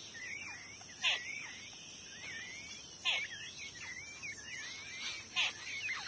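Birds calling: three loud calls about two seconds apart, each sweeping down in pitch, with softer twittering chirps between them.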